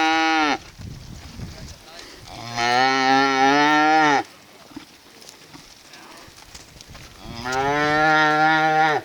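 Cattle mooing: three long, loud moos, one ending about half a second in, one around the third second and one near the end, each dropping in pitch as it ends.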